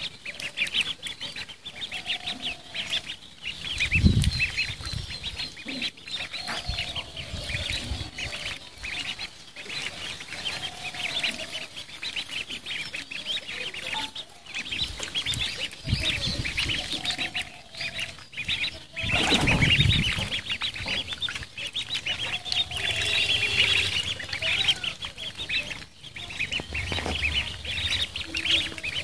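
A crowd of ducklings peeping constantly in high, rapid chirps as they swim in a tub of water. A few low thumps come through, loudest about four seconds in and again near twenty seconds.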